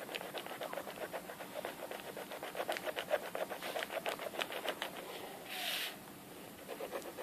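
Quick back-and-forth strokes of a drawing tool rubbing on paper for about five seconds, followed by a short breathy hiss.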